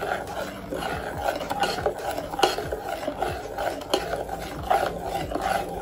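Metal spoon stirring batter in an enamel pot, scraping repeatedly against the pot's bottom and sides with light clicks.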